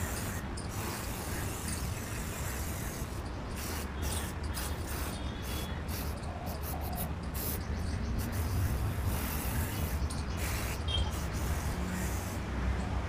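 Aerosol can of plastic trim restorer spraying in a run of short hissing bursts with brief pauses between them, over a low steady hum.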